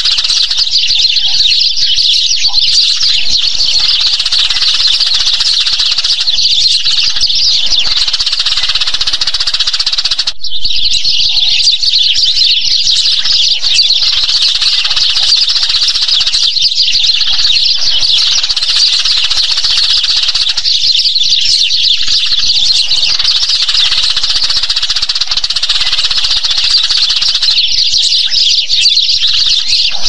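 A flock of Eurasian tree sparrows chirping continuously, many high chirps overlapping into a dense chatter, with a momentary break about ten seconds in.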